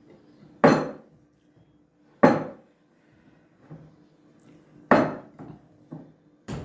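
A cut-glass bowl knocking against a wooden table as risen yeast dough is pressed down and worked in it. There are four sharp knocks about a second and a half apart, with a couple of lighter ones shortly before the last.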